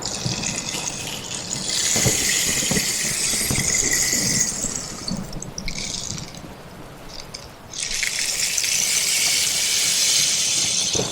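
Rain falling, a steady hiss that thins out about five seconds in and returns strongly about eight seconds in.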